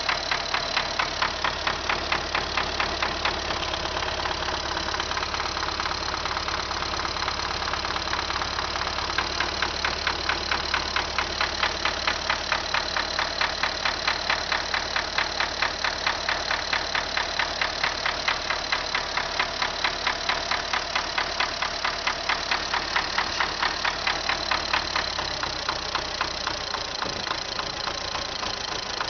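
MTZ tractor's diesel engine idling with a regular knock, about three a second.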